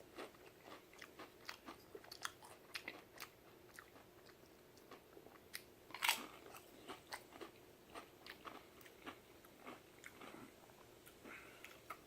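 Close-up chewing and crunching of Pringles potato chips stacked with pineapple: a run of small crisp crunches, with one louder crunch about six seconds in.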